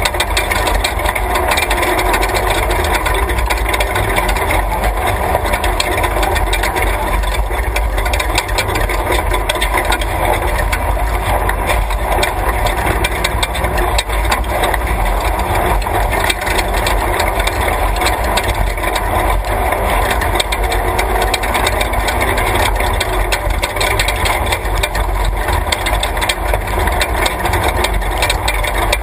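Class 3 off-road race truck driving steadily at speed over a rough dirt trail: engine running under load, mixed with chassis and road noise.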